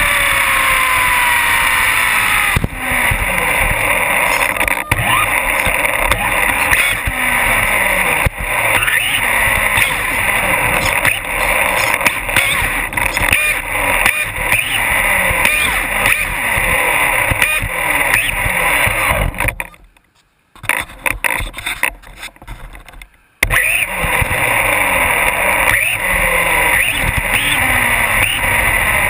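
Onboard sound of an RC buggy's Novak Ballistic 8.5 brushless motor and drivetrain, whining up in pitch again and again as the car accelerates, over a steady rush of road noise. About two-thirds of the way through it goes almost quiet for about three seconds, then starts again suddenly.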